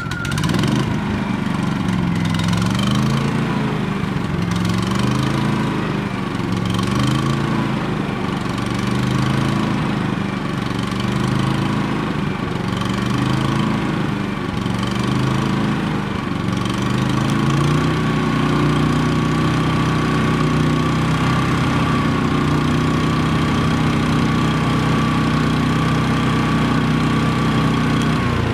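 Champion 3100-watt inverter generator's small four-stroke engine surging at idle, its speed rising and falling about every two seconds. The owner puts the surging down to a varnished or debris-clogged carburetor. About two-thirds of the way through, the surging stops and the engine holds a steady speed.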